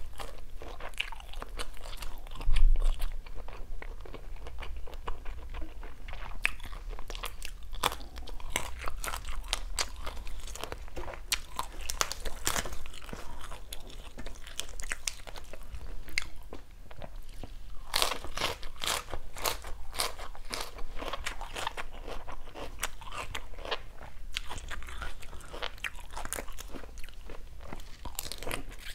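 Close-miked biting and chewing of grilled shrimp, a steady stream of crisp crunches and clicks, with a denser run of crunching about two-thirds in. A single low thump about two and a half seconds in is the loudest sound.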